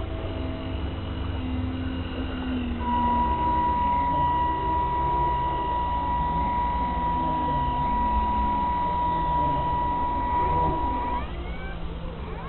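A steady high-pitched electronic tone, held for about eight seconds, over a constant low rumble, with faint voices in the background.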